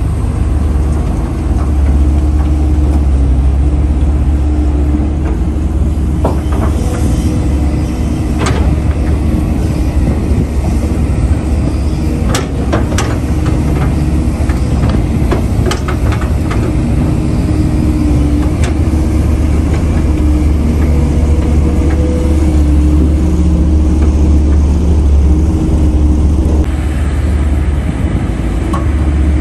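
Diesel engine of a Kobelco SK200 hydraulic excavator running steadily with a deep hum as it works, with scattered sharp knocks and clanks of bucket and rock through the middle stretch.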